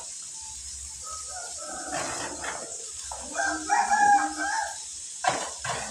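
A rooster crowing once, a single call of a little over a second about halfway through. A couple of sharp clicks near the end.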